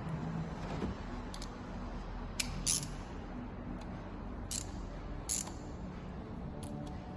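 Scattered sharp clicks and light taps, about six spread unevenly over several seconds, from engine parts and tools being handled during reassembly, over a faint steady background hum.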